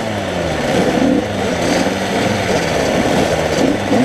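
Several motocross bikes' engines revving hard during a race, the pitch repeatedly climbing and then dropping as the riders work the throttle and shift gears, with more than one engine heard at once.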